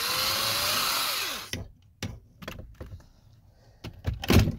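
Cordless drill running for about a second and a half, turning the drive of a gummed-up power seat track, its motor whine rising and then falling as it winds down. After that come scattered light clicks and knocks from handling the drill on the metal rail, with a louder knock near the end.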